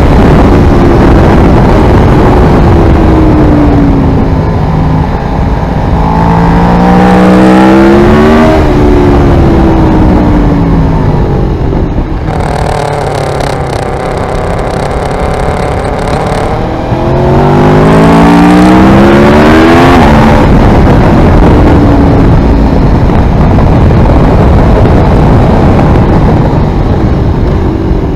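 Aprilia Tuono V4R's V4 engine through an Ozdany aftermarket exhaust, heard onboard at speed with heavy wind rush on the microphone. The engine note climbs sharply under hard acceleration about six seconds in and again around seventeen seconds in, each time breaking off as the throttle closes. In between it drops to a lower, quieter note while backing off.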